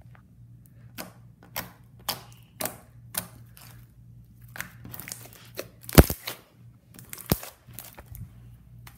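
Homemade slime being poked and stretched, making a series of sharp clicking pops, about two a second at first, with the loudest pop about six seconds in and another just after seven.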